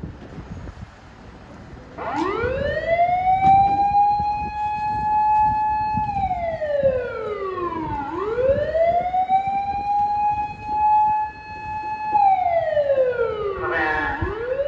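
Japanese fire engine's wailing siren switching on about two seconds in: it winds up, holds a high note for a few seconds, then slides down and winds up again, twice over. A vehicle's running noise rumbles underneath.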